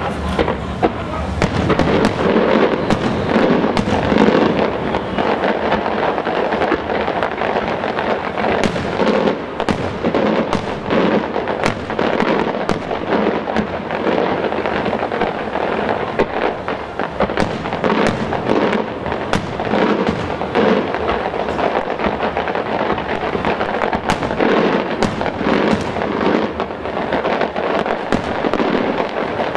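A fireworks display going off in a dense, continuous barrage of shell bursts and crackling, with sharp bangs several times a second.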